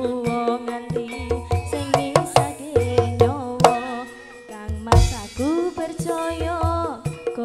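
Javanese gamelan-style music: a hand drum, the kendang, beats a steady rhythm under sustained pitched tones. A female singer comes in with a wavering, sliding melody.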